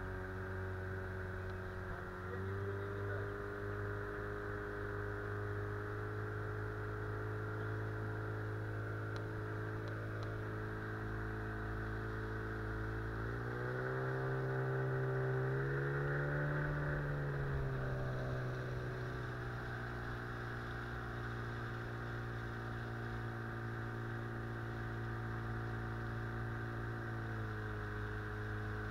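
Small outboard motor driving an inflatable boat upstream, running steadily; about 13 seconds in its pitch rises as it speeds up, then settles back down a few seconds later.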